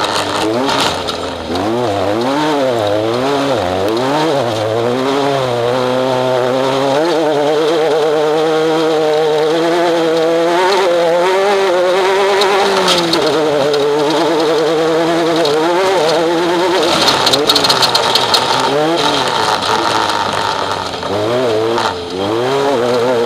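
Off-road race vehicle's engine heard onboard, revving up and down over and over, its pitch rising and falling every second or so. It then holds high and fairly steady for several seconds midway, before dropping and swinging again near the end, over a steady rushing noise.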